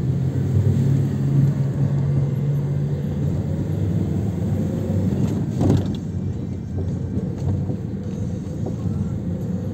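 Moving route minibus (marshrutka) heard from inside the cabin: a steady engine and road rumble with a low engine hum, and a single knock a little past halfway.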